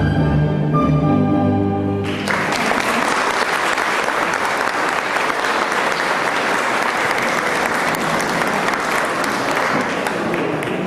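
A song ends on a held musical chord about two seconds in, and the audience breaks into applause, which fades near the end.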